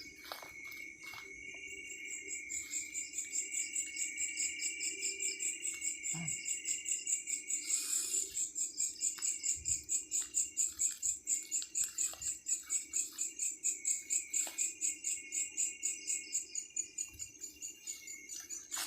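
Night insects, crickets or katydids, chirping: a high-pitched call pulsing fast and evenly, growing louder a couple of seconds in, over a steady insect drone.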